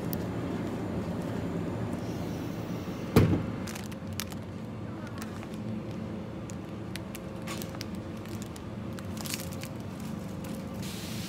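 Steady low hum and rumble with one loud knock about three seconds in, followed by scattered light clicks and taps.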